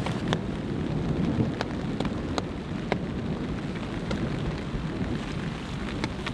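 Steady rain with a low rumble underneath and scattered sharp taps.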